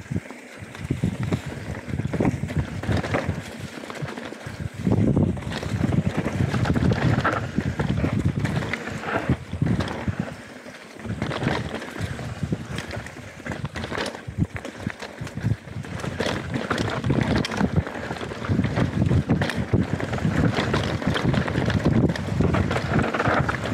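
Canyon Spectral 125 mountain bike descending a rough dirt trail: wind buffeting the microphone and tyres rolling over dirt, with frequent irregular knocks and rattles from the bike over roots and rocks. The noise swells and dips with the terrain.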